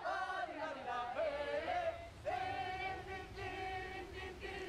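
Several voices, men and women, singing together without words: gliding notes at first, then long held notes from about two seconds in.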